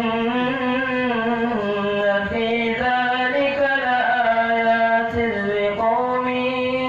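Qur'an recited in the melodic tilawah style by a single voice: long held, ornamented notes that bend slowly up and down, with a brief break for breath about five seconds in.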